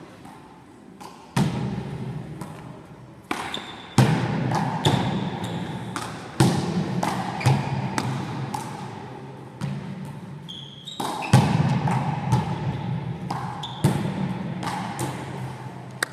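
One-wall handball rally: a small hard ball slapped by gloved hands and striking the wall and floor, about a dozen sharp smacks starting about a second and a half in, each ringing on in the sports hall's echo. Trainers squeak briefly on the hall floor between shots.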